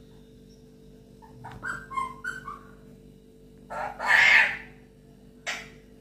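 Alexandrine parakeet calling: a quick run of short chattering notes, then a single loud harsh squawk about four seconds in.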